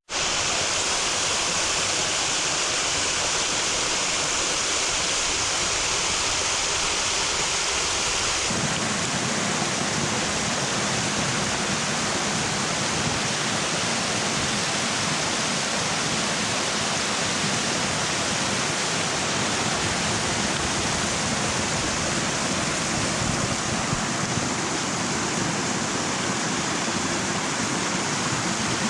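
Small waterfall rushing steadily, a loud even hiss of falling water. About eight seconds in the tone shifts, with less hiss and more low rumble.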